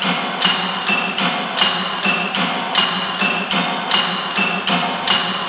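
Kinetic sound sculpture's carved wooden birds, lifted by relays, pecking against a sculpted yew-wood trunk: a steady, even rhythm of sharp wooden knocks, about two and a half a second. Each knock carries a brief ringing tone, alternating between two slightly different pitches.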